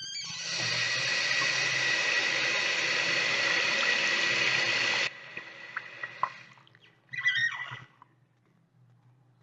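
Bathroom sink faucet running in a steady stream for about five seconds, then cut off suddenly. A few faint drips follow, and the faucet squeals briefly about seven seconds in.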